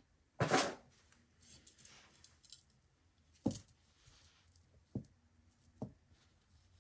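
Metal costume jewelry being handled: a short rattle about half a second in, then scattered light clinks and a few sharper clicks as a rhinestone-set enamel pendant necklace is picked up and its cords untangled.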